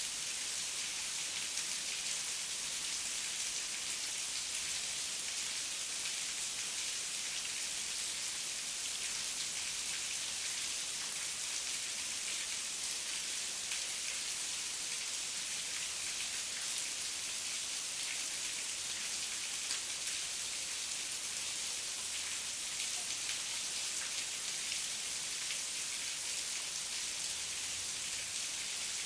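Steady heavy rain: a dense, even hiss of raindrops with fine patter and no thunder.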